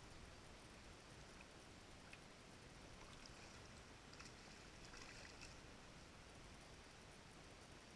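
Near silence: faint river ambience, with soft splashing of a wader-clad leg stepping through shallow water from about three to five seconds in.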